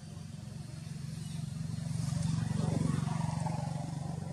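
A motor vehicle passing by: a low engine hum that grows louder to a peak about three seconds in, then fades.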